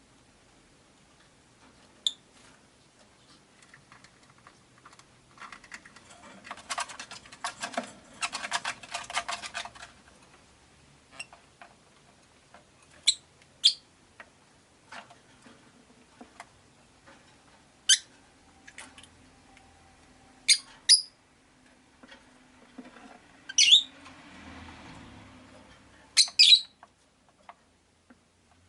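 Rosy-faced lovebirds giving short, sharp, high chirps every few seconds, a couple of them in quick pairs. A rapid rattling chatter runs for a few seconds near the start, and a soft rushing sound passes about two-thirds of the way through.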